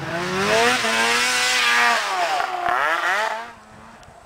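Snowmobile engine revving hard, its pitch rising and falling as the throttle is worked. It drops away sharply about three and a half seconds in.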